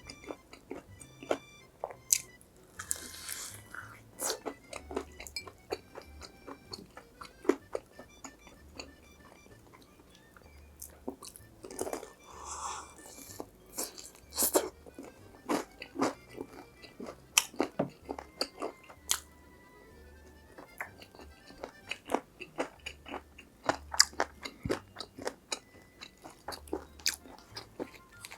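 Close-miked eating of crispy fried food: irregular crunching bites and chewing, with sharp crackles throughout, over quiet background music.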